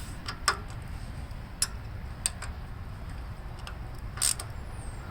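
A hand wrench or socket ratchet tightening nuts on steel bolts: a few separate metal clicks, then a short rattle about four seconds in, over a low steady rumble.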